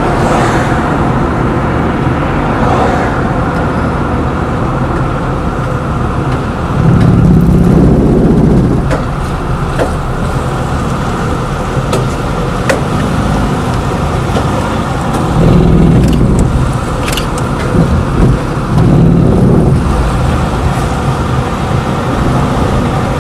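Car driving along a road: steady engine and tyre rumble, swelling louder for a second or two about seven seconds in and again twice later, with a few sharp ticks.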